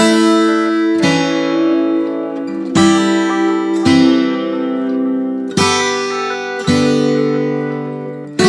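Background music: an acoustic guitar strumming chords, with a new chord struck about every one to two seconds.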